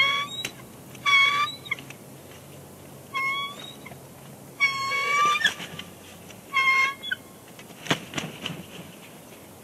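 Bald eagles calling to each other at the nest during a shift change: five rounds of high, piping chirps about a second apart, the fourth the longest. A sharp knock and some rustling follow near the end.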